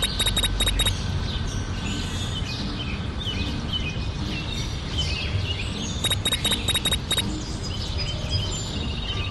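Birds chirping over a steady low rumble of background noise. A burst of rapid ticking with a high steady tone comes at the start and again about six seconds in.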